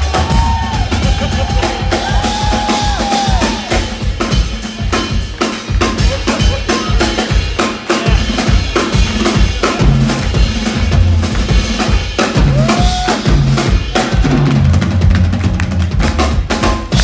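Drum kit played hard and fast: a dense run of snare, tom and cymbal hits over a pounding bass drum.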